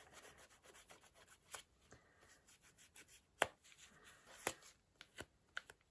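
Faint, scattered light clicks and taps from handling small nail-art tools and bottles, the sharpest about three and a half seconds in.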